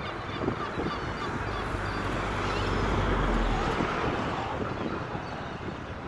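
A flock of gulls calling over and over, many short calls overlapping. Wind rumbles on the microphone, swelling through the middle and dropping away about three and a half seconds in.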